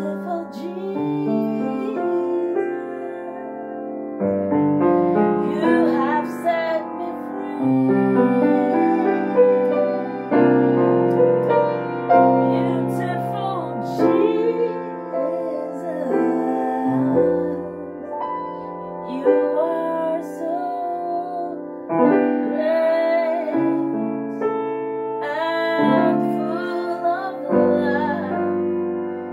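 Grand piano played in held chords, accompanying a woman singing a slow worship song, with sung held notes that waver over the chords from about five seconds in.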